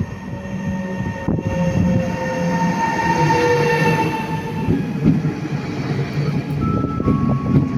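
Train passing close by: a steady rumble and clatter of wheels on the rails, with a whine of several tones slowly falling in pitch, and two brief higher tones near the end.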